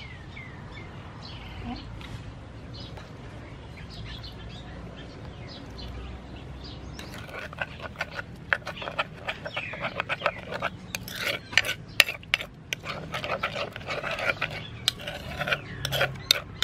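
Metal spoon stirring a wet chili sauce in a wooden mortar, clicking and scraping against the bowl in quick strokes that start about seven seconds in. Before that, faint bird chirps.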